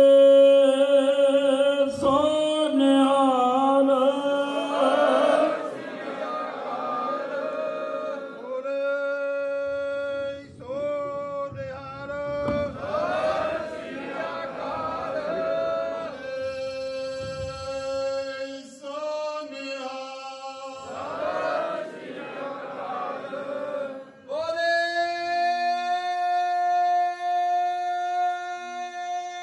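Sikh devotional chanting sung by men's voices in long, held, wavering phrases with short breaks between them. It is loudest at the very start, and a long steady high note is held near the end.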